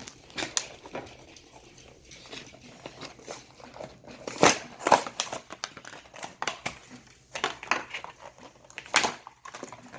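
Toy packaging crinkling and rustling as it is handled and opened by hand, in irregular crackles, loudest about four and a half to five seconds in and again near nine seconds.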